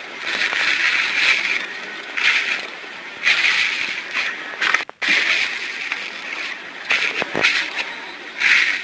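Slime being squeezed and worked by hand, giving irregular bursts of crackling and squelching, with a brief break about five seconds in.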